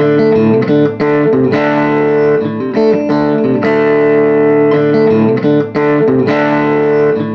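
Looped electric guitar chords played through a silverface Fender Champ's speaker, re-struck about once a second, with the amp's volume being cranked until its fresh 6V6 output tube breaks up into distortion. The amp has had gain modifications for a low-gain complaint.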